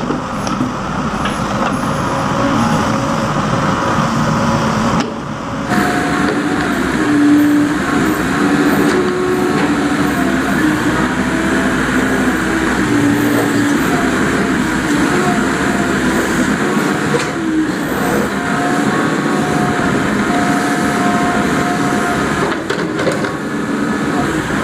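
Diesel engine of a Case 580 backhoe loader running while it digs, its note stepping up and down as the hydraulics are worked.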